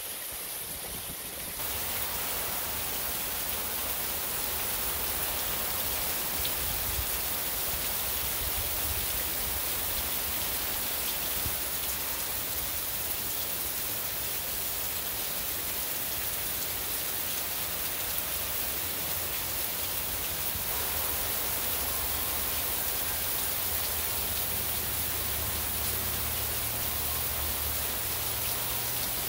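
Heavy rain pouring down, a steady dense hiss that steps up in loudness about a second and a half in.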